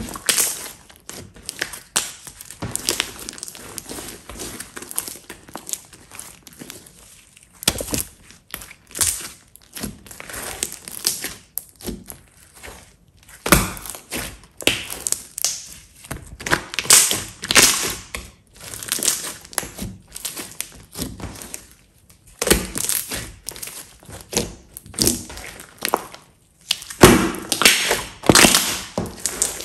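Hands squeezing, kneading and stretching a large mass of glossy slime, giving irregular bursts of sticky crackling and popping with short pauses between handfuls.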